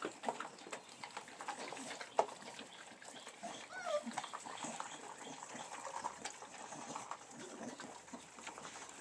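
Puppies and their mother dog lapping and smacking at a wet, mushy mix of kibble, beans and pork: many small wet clicks, with a brief squeak about four seconds in.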